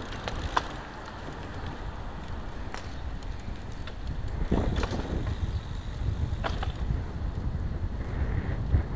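Road bicycle riding on asphalt: wind rushing over the microphone and tyre and road rumble, with a few short clicks and knocks. The rumble grows louder about halfway through.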